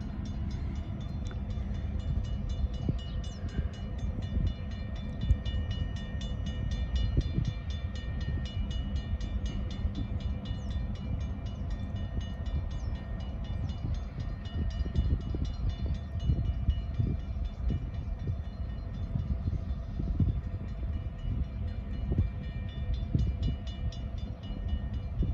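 Diesel-electric locomotives moving at low speed, their engines running with a low rumble. From about two seconds in a bell rings in quick, even strikes.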